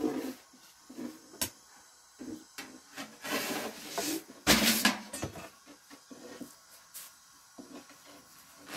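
Making flatbread by hand: a long thin wooden rolling pin rolling and knocking on a floured wooden board, with dough and flour rubbing and rustling. Scattered sharp knocks, with louder rustling about halfway through.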